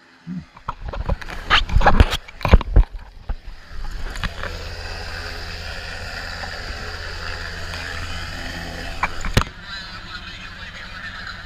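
Loud knocks and bumps against the camera for the first three seconds or so, then the steady noise of a Sikorsky S-92 helicopter hovering close overhead. After a last knock about nine seconds in, the helicopter becomes quieter and muffled, heard from under the liferaft canopy.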